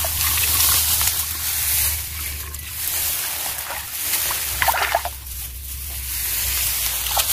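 Muddy water sloshing and splashing as someone wades and gropes by hand in a shallow drained ditch, with a short burst of splashing about four and a half seconds in. A steady low hum and hiss run underneath.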